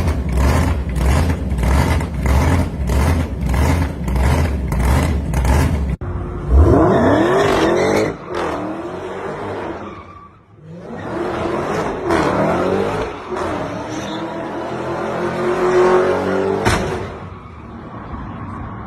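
A steady bass-heavy music beat at about two pulses a second, then a cut to a car engine revving hard and accelerating. The engine fades out, comes back with a second rising run, and there is a sharp knock near the end.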